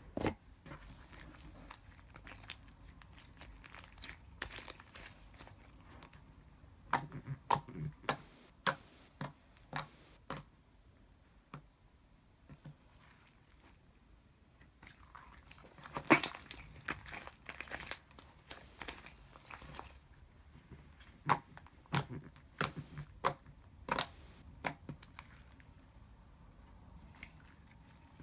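Slime being squeezed and worked by hand, giving clusters of sharp crackling clicks and pops with quieter pauses between.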